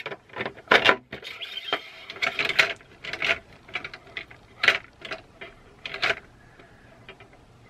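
Black plastic trays of a stamp-pad caddy clacking and knocking as they are handled and fitted together on the stand's metal rod: a string of sharp, uneven knocks that dies away after about six seconds.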